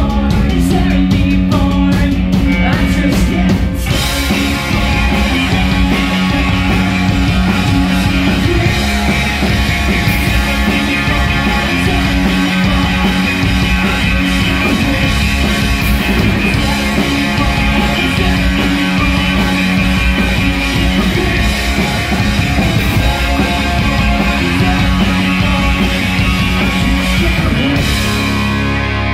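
Live punk rock band playing loud: electric guitar, bass guitar and drum kit, with sung vocals.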